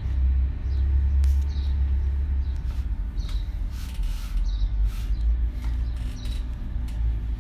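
Low rumble and handling noise on a phone microphone, with scattered clicks and a few short, faint high chirps.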